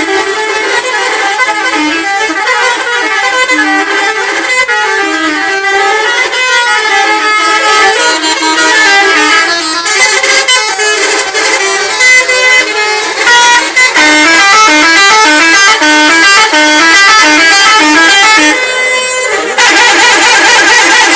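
A bus's telolet horn, a set of musical multi-tone air horns, playing a long tune of short notes stepping up and down. It changes to a faster warble near the end.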